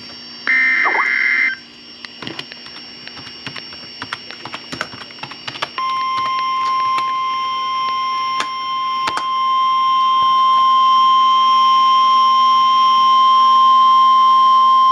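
NOAA Weather Radio Emergency Alert System broadcast for a severe thunderstorm warning. It opens with the last burst of the warbling SAME digital header, followed by a few seconds of scattered clicks and crackle. About six seconds in, the steady 1050 Hz weather-radio warning alarm tone starts and holds.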